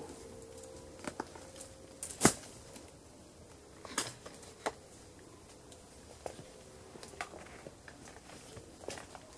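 Scattered sharp snaps and cracks of twigs and branches, with brush rustling, under someone climbing about in a wind-thrown tree. One crack about two seconds in is much louder than the rest.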